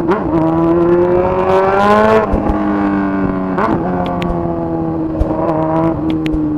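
Honda Hornet's inline-four engine through a straight 3-inch exhaust pipe with no muffler, pulling hard through the gears. The pitch climbs, drops at a gear change a little over two seconds in, jumps again near four seconds, then holds nearly steady.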